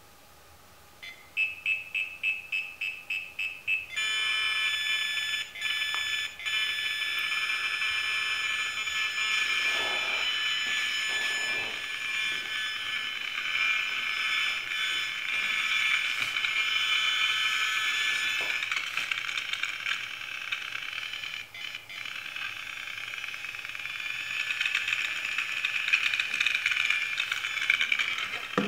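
Electronic alarm of a BugHunter BH-02 Rapid RF bug detector. It starts as rapid high beeps, about three a second, and after a couple of seconds merges into a steady high-pitched tone, with a few brief dropouts, as the detector picks up a strong radio signal. A short thump comes at the very end.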